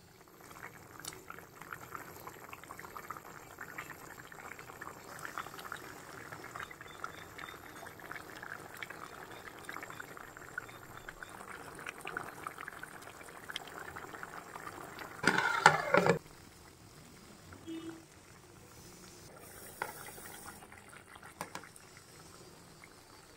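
Curry simmering in a lidded pan, a steady fine crackle of small bubbles popping. About fifteen seconds in, a louder noise lasts about a second, and a few faint short sounds follow.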